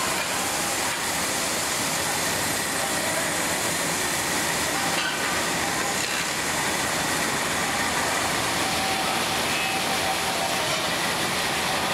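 Metal lathe turning a pressure cooker body while the cutting tool shaves off curls of metal: a steady, unbroken hissing machine noise with a few faint steady tones in it.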